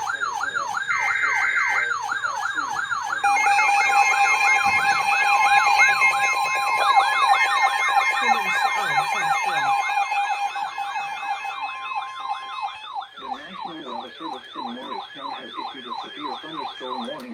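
An electronic siren yelping fast, about three to four sweeps a second, throughout. From about three seconds in, steady alert tones and a stuttering higher tone sound over it; these stop around ten to thirteen seconds in, and the siren is a little quieter after that.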